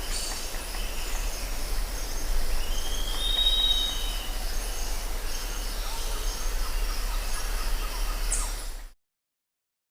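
A bird's high whistled call, with one drawn-out note about three seconds in and fainter high calls elsewhere, over steady hiss and a low rumble; the sound cuts off abruptly near the end.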